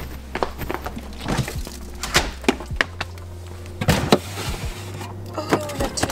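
Refrigerator being opened and its plastic crisper drawer rummaged: knocks and clatter of cardboard film boxes knocking against the plastic, loudest about two seconds in and again around four seconds in, over a low hum, with short squeaks near the end.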